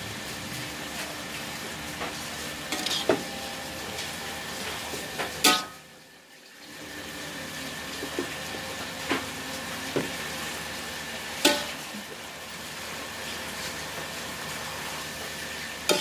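Water spinach stir-frying in a metal wok: a steady sizzle, with the metal spatula scraping and knocking against the pan every second or two. The sizzle dips briefly about six seconds in.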